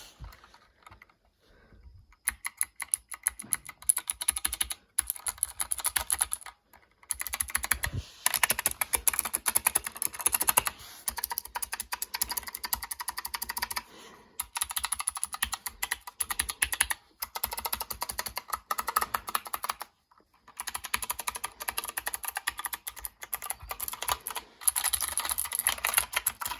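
Fast typing on a 60% mechanical keyboard with clicky Gateron Blue switches, in bursts of rapid clicks broken by short pauses.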